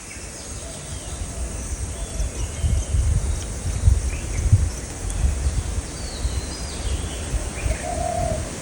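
Outdoor natural ambience with short bird chirps now and then over a low, uneven rumbling noise, and a faint steady high insect-like tone. Near the end a lower, slightly wavering call comes in.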